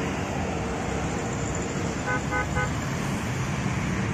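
Steady road traffic passing, with a vehicle horn giving three quick toots a little over two seconds in.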